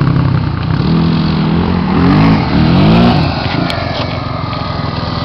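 ATV engine running hard on a sand hill climb, revved up and down twice about two seconds in, then easing to a quieter steady drone.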